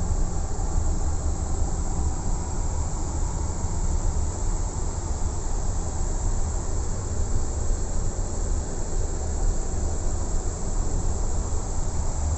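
Steady low rumble and hiss of airflow inside a Boeing 777-200 flight deck while the aircraft is under tow, with the APU running.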